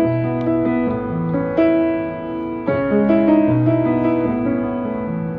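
Piano playing the instrumental intro of a slow country song: held chords over a moving bass line, with new chords struck about once a second and no singing.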